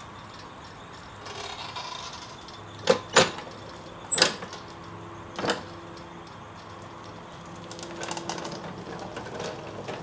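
Radio-controlled power wheelchair base driving off under its electric drive motors, with a faint steady motor whine. Four sharp knocks, the loudest sounds, come between about three and five and a half seconds in.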